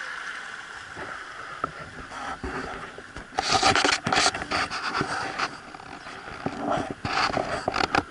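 Wooden river boat under way, with two stretches of loud scraping and rubbing, the first about three seconds in and the second near the end.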